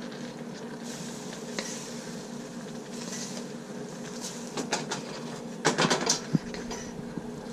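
Chow mein noodles being tossed in a pan: a metal utensil scraping and clinking against the pan, with a cluster of louder knocks near the end, over a steady hum.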